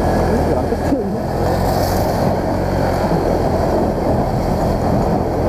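Small motor scooter's engine running steadily while being ridden, under heavy wind rumble on the microphone.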